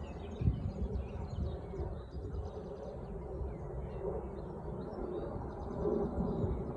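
Outdoor ambience: small birds chirping over a steady low rumble, with a few soft thumps.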